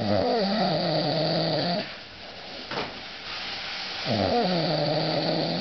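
A sleeping pet snoring loudly: two long snores, each dropping in pitch at the start and then holding a steady tone, with quieter breathing between them.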